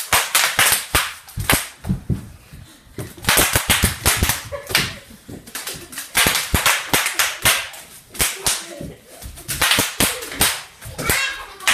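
Bubble wrap being squeezed and twisted, popping in quick runs of sharp cracks with short gaps between, used as home-made gunshot sound effects.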